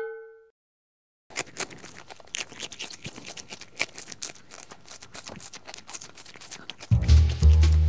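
Long-haired Syrian hamster nibbling and rustling among its food, close up: a run of small irregular clicks and crackles. A piano note fades out at the start, and background music comes back in near the end.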